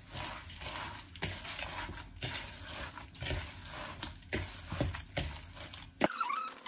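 Bare hands squishing and kneading a moist mashed tofu and breadcrumb mixture in a bowl, a soft wet squelching and rustling that comes in strokes about once a second. Near the end the mixing sound cuts off abruptly and a wavering high tone starts.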